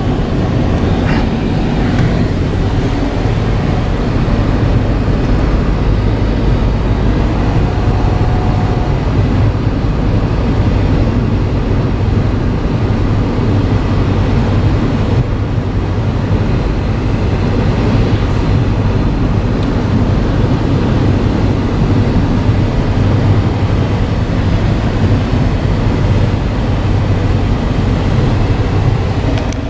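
Steady road and engine noise of a car being driven, heard from inside the vehicle: an even low rumble.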